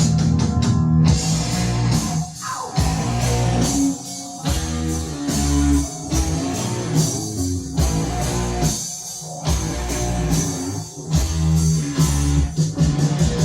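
Rock music with electric guitar and drums, played back on a Yamaha K-550 cassette deck, with short stop-time breaks every couple of seconds.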